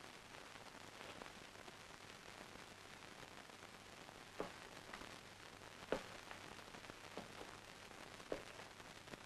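Faint steady hiss of an old film soundtrack, broken by a few sharp clicks and pops, the loudest about six seconds in.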